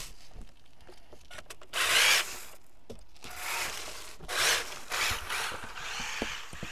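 Radio-controlled car running on ice, heard from a camera mounted on it: mechanical rattling with two short, louder bursts of whirring, scraping noise.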